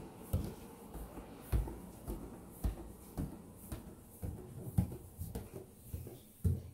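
Footsteps climbing hardwood stairs: a steady series of dull thuds, about two a second.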